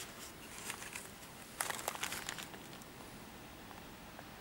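Faint rustling and crinkling, with a cluster of light clicks about a second and a half to two and a half seconds in.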